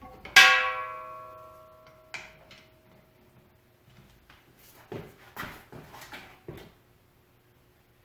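A sharp metallic clank of steel tools on the compressor, ringing on with several clear tones for about a second and a half before it is damped about two seconds in. A few lighter clicks and knocks of tools on metal follow near the end.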